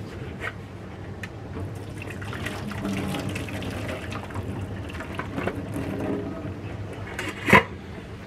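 Hot cooking water poured from a lidded stainless steel pot into a stainless steel sink, draining boiled potatoes; the pouring builds and then tails off. A sharp clank near the end.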